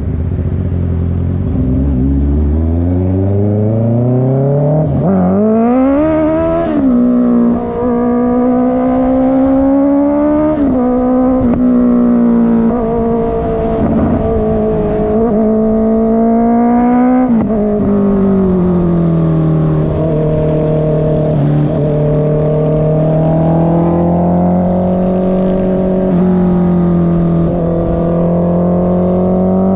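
Honda CB650R's inline-four engine through a loud exhaust, accelerating with rising revs, then dropping sharply at an upshift about seven seconds in. It holds fairly steady revs with brief dips, eases off around seventeen seconds in, and runs at a steady cruise.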